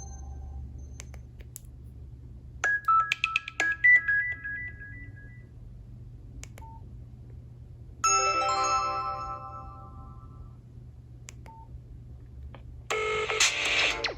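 Nokia 5610 XpressMusic playing its built-in alert tones one after another: a short multi-note chime about three seconds in, a second chime about eight seconds in, each ringing out and fading, then a busier, louder electronic tone starting near the end. Faint clicks and brief beeps come between the tones.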